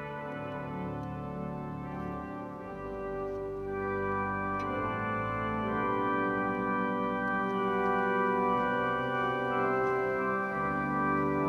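Organ music: slow sustained chords, the harmony shifting about two and a half seconds in, again near four and a half seconds, and once more near the end, growing louder partway through.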